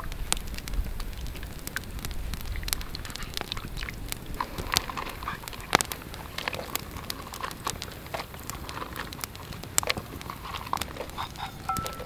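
Campfire crackling: irregular sharp pops and snaps over a low hiss.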